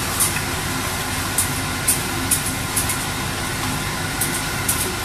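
A wooden spatula stirring thick masala gravy in a pan, with short irregular crackles over a steady rumbling noise.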